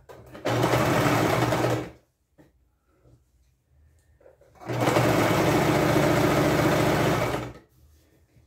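Electric sewing machine running in two stitching runs, about a second and a half and then about three seconds, with a short pause between. It is sewing a hem folded once so the fabric edge won't fray.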